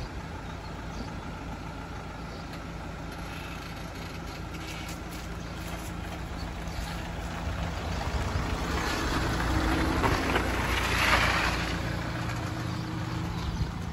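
Mahindra Thar's engine running at idle, a steady low hum that grows louder about halfway through as the vehicle moves off.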